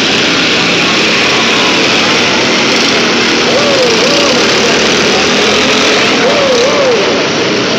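Many riding lawn mower engines running at once in a loud, steady din, with a wavering shout from the crowd twice.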